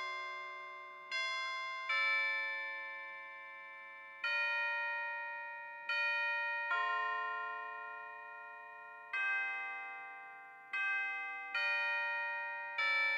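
Instrumental hymn introduction: about nine slow, bell-like chords, each struck and left to ring and fade before the next.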